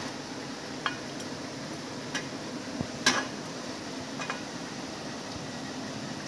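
A serving spoon clinking against a kadai and a serving bowl as rice is served out: a few separate clicks, the loudest about three seconds in, over a steady low hum.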